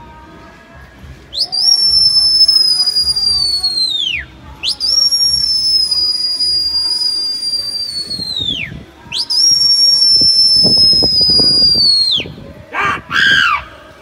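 Three long, loud human whistles, each about three seconds: each jumps up in pitch, holds high with a slow sag, then drops away. This is a pigeon flyer whistling at his flock circling overhead. Near the end come two short high calls.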